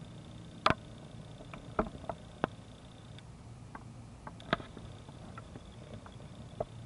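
Handling noise from a hand-held camera: five or six sharp, irregular clicks and ticks over a faint steady low rumble and a thin high whine.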